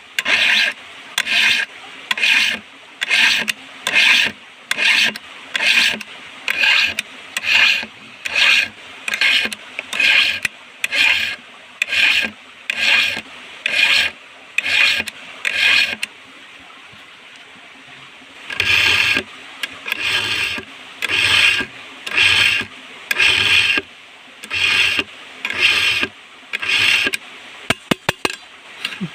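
A round file being pushed across a chainsaw's chain cutters by hand in steady, even strokes, about three every two seconds: the chain is being sharpened. The filing stops for about two seconds around the middle, then starts again, and a few sharp clicks come near the end.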